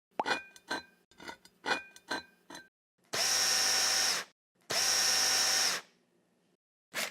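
A quick run of metallic clicks and clanks, then a power drill running in two short bursts of about a second each, followed by a few more clicks near the end.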